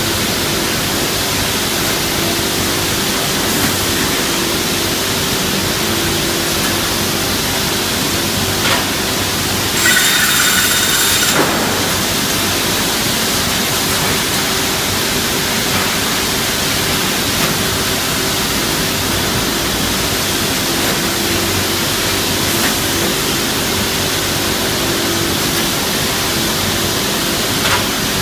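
Woodworking double-end saw running, with a steady hum and a loud, even noise. About ten seconds in, a louder, higher-pitched stretch lasts about a second and a half.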